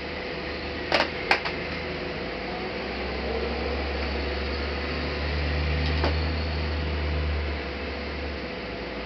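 Sharp clicks of plastic laptop parts and tools being handled during disassembly: two close together about a second in and one more about six seconds in. Under them are a steady hiss and a low hum that swells in the middle and dies away near the end.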